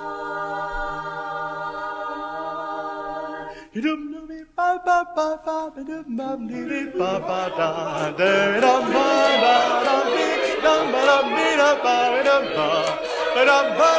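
Group of voices singing a cappella. A chord is held steady for the first few seconds. After a short break, short sung notes build into a louder, dense tangle of voices, each singer improvising freely over the chord.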